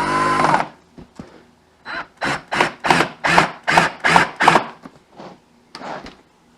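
Black+Decker 20V cordless drill driving a screw into wood: a short spin-up that rises in pitch and holds, then a run of about eight quick rasping bursts, roughly three a second.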